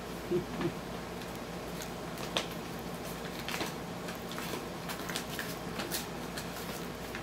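Dog tearing and chewing at a brown paper shopping bag: scattered crinkles, rustles and small rips of paper, with a couple of short, louder noises about half a second in, over a steady low room hum.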